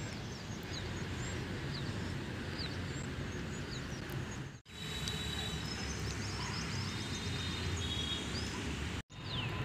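Outdoor ambience of many small birds chirping, with short quick chirps and whistles scattered throughout, over a steady low rumble. The sound cuts out briefly twice, about halfway and near the end.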